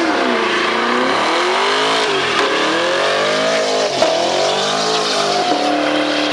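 Sixth-generation Chevrolet Camaro doing a burnout: the engine revs up and down again and again, about once a second, over the hiss of the spinning rear tyres. Near the end the revs hold steady.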